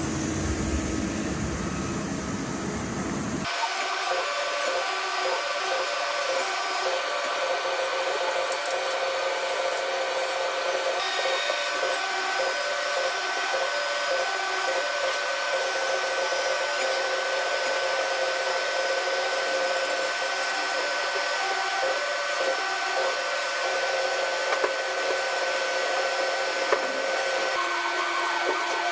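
Steady mechanical hum and whine of a CNC machining center running during setup, changing abruptly about three and a half seconds in to a higher, thinner drone with a few steady tones.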